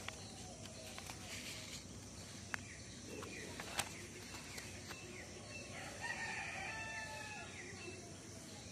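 Notebook pages being handled and turned, with a few sharp clicks and paper rustles in the first four seconds. About six seconds in, one long bird call lasting about a second and a half sounds over a steady background hiss.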